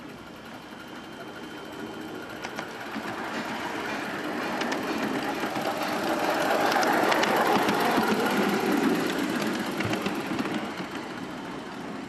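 5-inch gauge live steam model 0-4-0 saddle tank locomotive running under steam with a driver aboard. Its running sound grows steadily louder as it approaches, is loudest about seven to nine seconds in, then fades as it passes.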